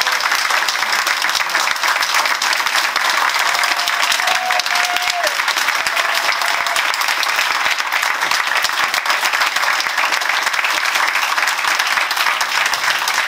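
Large audience applauding steadily, a dense sound of many hands clapping. A faint voice calls out briefly among the clapping about four seconds in.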